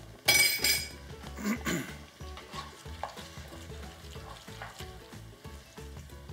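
Metal spoon stirring and scraping through sizzling mutton, chopped vegetables, diced tomato and tomato paste in a frying pan. It is loudest just after the start, then settles to a lower clatter and hiss.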